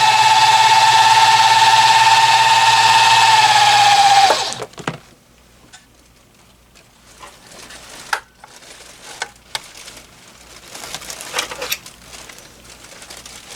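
Janome HD1000 sewing machine running flat out with its handwheel disengaged to wind a bobbin: a loud, steady motor whine that winds down and stops about four seconds in. Light clicks and handling noises follow.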